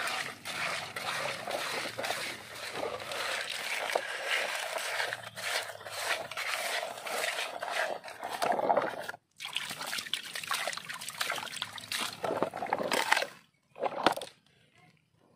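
Muddy water sloshing and splashing as a hand rubs wet sand out of a plastic toy dump truck's tipper bed in shallow water, with small gritty scrapes against the plastic. It breaks off briefly about nine seconds in and falls quiet near the end.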